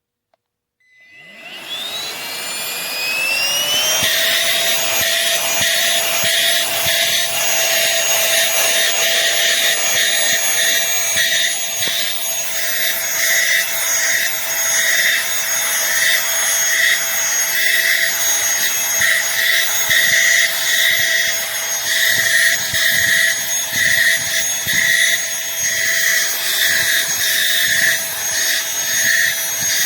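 Cordless handheld vacuum cleaner's motor switching on about a second in, its whine rising in pitch for about three seconds, then running steadily with a high whine and rushing air that swells and dips unevenly.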